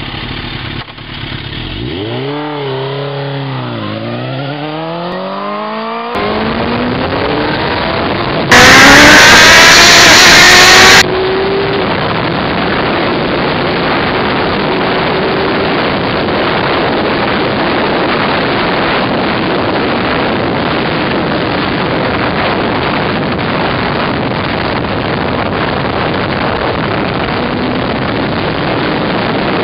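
2001 Suzuki GSX-R1000's inline-four engine revved in several rising and falling blips. It then runs very loud for a couple of seconds under hard acceleration, its pitch climbing. After that, steady wind rush on the bike-mounted microphone mostly covers the engine as the bike rides on.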